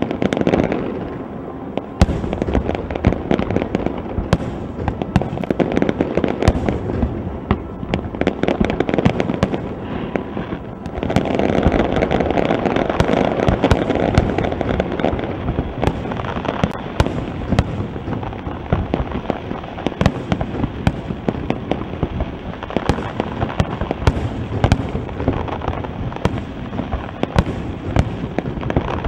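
Aerial fireworks going off in a dense, continuous crackle of many small pops and bangs. There is a sharp report about two seconds in, and the crackling grows louder and thicker from about eleven to fifteen seconds in.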